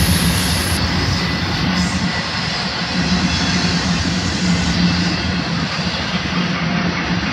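Intermodal freight train cars rolling past: a loud, steady roar of steel wheels on the rails.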